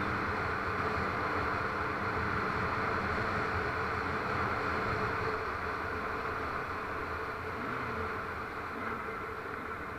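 Engine of an off-road vehicle running at a steady cruising speed, heard as a constant drone under wind and dirt-road noise; it eases off slightly about halfway through.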